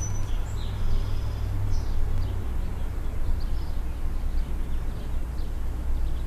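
Outdoor background: a steady low rumble with small birds chirping and whistling now and then.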